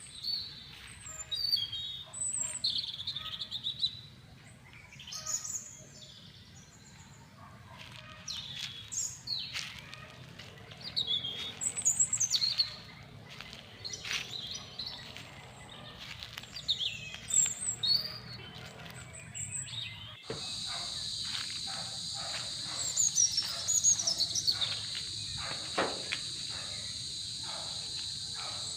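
Birds chirping and calling, in short rising and falling notes. About two-thirds of the way through, a steady high insect trill, typical of crickets, starts abruptly and runs on under the birdsong.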